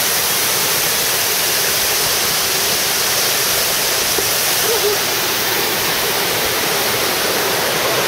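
Waterfall pouring down a rock face: a steady, even rush of falling water.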